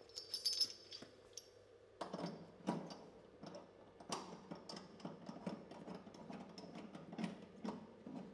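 Metal fittings clinking with a brief ringing, then, from about two seconds in, an irregular run of knocks and scrapes as a red food-grade rubber hose is handled and coupled to a stainless steel tank outlet valve.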